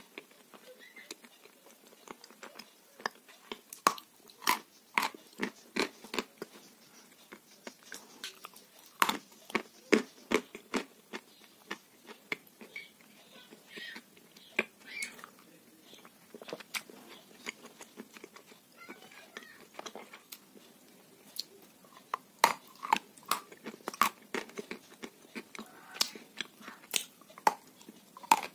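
Close-miked chewing of French fries with sauce: irregular wet mouth clicks and soft crunches, coming in clusters with a quieter stretch in the middle.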